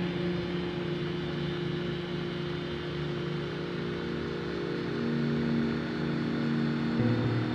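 Ambient drone music: low held tones over a hiss, with a new sustained note coming in about five seconds in and the low notes shifting near the end.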